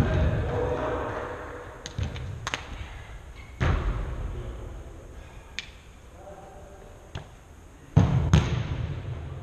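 A football being kicked and striking the boards and netting on an indoor five-a-side pitch: a handful of hard thuds, the loudest about 4 and 8 seconds in, each echoing in the hall.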